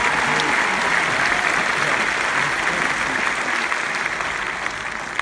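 Large arena crowd applauding, a dense steady clatter of clapping that slowly dies down near the end.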